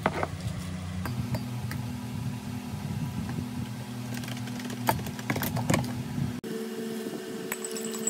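Scattered light clinks and taps of a glass coffee carafe and spoon against a ceramic mug as coffee is poured and stirred, over a steady low hum; the sound changes abruptly about six and a half seconds in.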